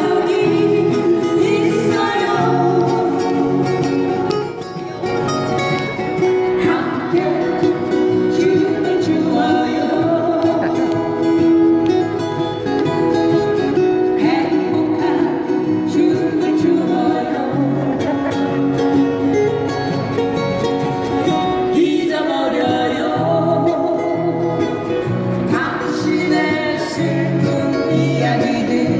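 A small acoustic guitar band strumming several acoustic guitars and singing an upbeat Korean pop song through microphones and small PA speakers.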